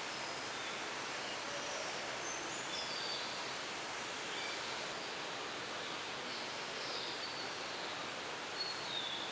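Small birds giving scattered short, high chirps and whistles over a steady hiss.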